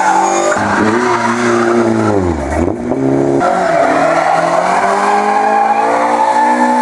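Rally cars doing doughnuts, their engines held at high revs while the tyres spin and screech. A Ford Escort Mk2's revs fall away about two and a half seconds in. After a sudden cut, a Talbot Sunbeam's engine runs hard and steady as its rear tyres spin.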